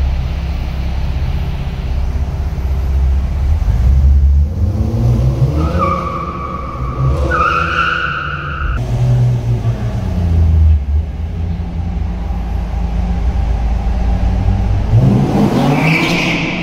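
Car engines rumbling and revving as cars pull away and accelerate through a concrete parking garage. Tyres squeal on the smooth floor twice around six to nine seconds in, and again near the end.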